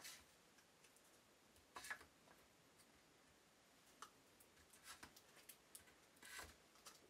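Faint, scattered clicks and rustles of plastic pipe sleeves being handled and pushed into holes in a wooden holder, with near silence in between.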